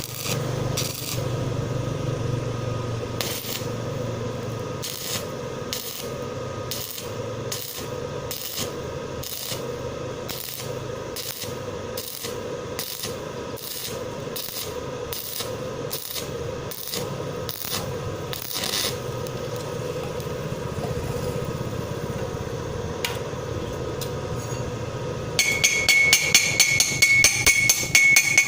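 Metal scraping in regular strokes about twice a second over a steady hum. Near the end comes a fast run of sharp, ringing hammer taps on metal.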